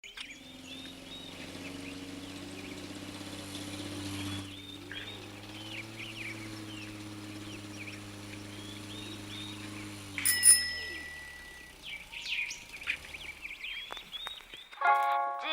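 Birds chirping over a steady low hum that fades out after about ten seconds. About ten seconds in comes a single sharp, loud hit with a ringing high tone. Music with sung harmonies starts right at the end.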